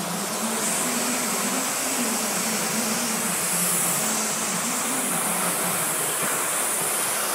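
Steady machine noise: a low hum that wavers slightly in pitch under an even hiss.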